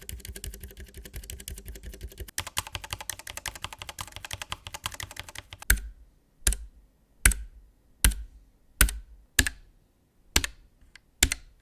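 Typing on a Keychron K3 low-profile mechanical keyboard with white optical switches: a rapid run of key clicks for the first half, then single, louder key presses about one every 0.7 seconds.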